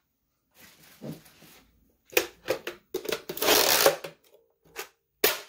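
Rubber-band-powered Nerf Dog tennis ball launcher being reloaded, cocked and fired. There are clicks and scraping of plastic, a louder rasp lasting about a second a few seconds in, and a short sharp crack near the end.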